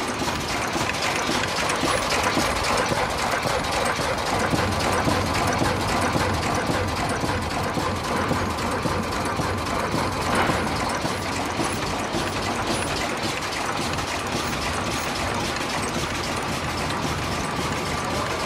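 Automatic face mask production machine running at speed: a steady, dense mechanical clatter of rapid clicking, with one louder click about ten seconds in.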